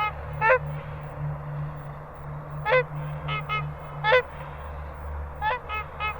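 Goose honking: short, sharp calls, some single and some in quick pairs, at irregular intervals over a steady low hum.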